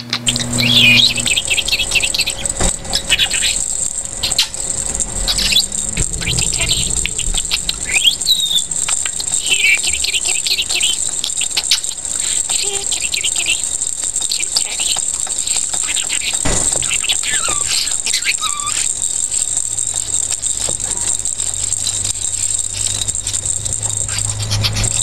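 Budgerigar chirping and warbling: a long run of short, quick high chirps and squeaks, with a few slower, lower swooping notes about two-thirds of the way through.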